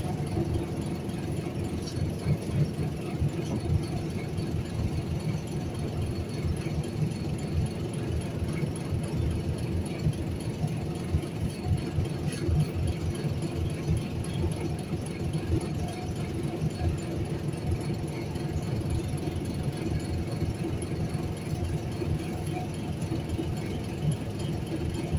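Small river ferry's engine running steadily while the boat is under way, a low, even drone with a constant hum.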